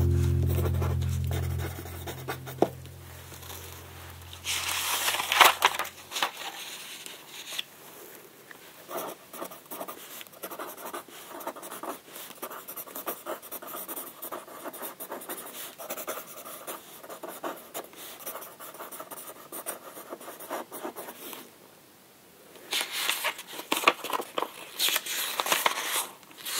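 Old paper sheets rustling and crinkling as they are handled, in scattered crackly bursts, loudest about five seconds in and again near the end. The last notes of background music fade out in the first two seconds.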